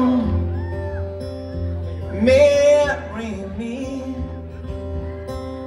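Live acoustic guitar playing held, ringing chords with a male voice singing along, peaking in one loud held sung note about two seconds in.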